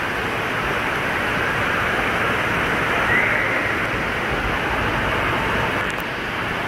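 Steady rush of spraying and splashing water from a water play structure's spouts and splash-pad sprays.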